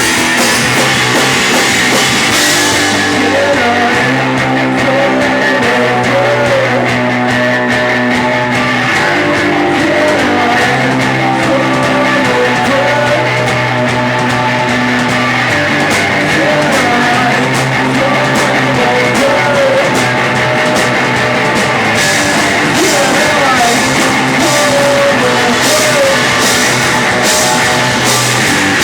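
Loud rock music with guitar, bass and drums and a singing voice; the cymbals grow stronger about two-thirds of the way through.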